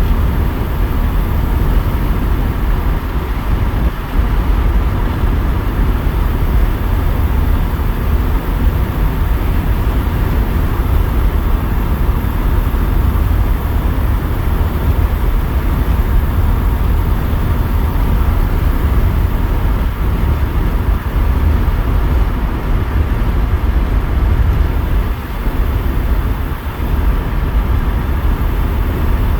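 Car running with a steady low rumble, on a car whose owner finds it down on power and suspects the ignition timing is not advancing.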